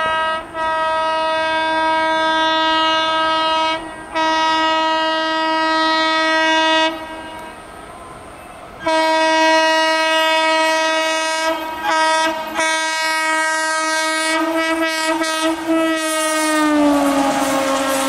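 Indian Railways electric locomotive horns sounding in long, loud blasts with short breaks. About nine seconds in, a long blast begins and stutters several times, then drops in pitch as the WAP-5 locomotive passes at speed, followed by the rush and clatter of its passing coaches.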